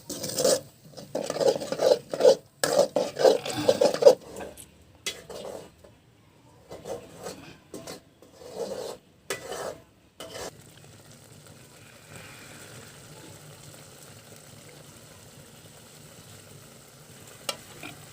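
A spoon stirring and scraping spiced onion-tomato masala in a frying pan, in quick irregular strokes, just after a little water has gone in. About ten seconds in the stirring stops and only a faint steady sizzle remains, with one short click near the end.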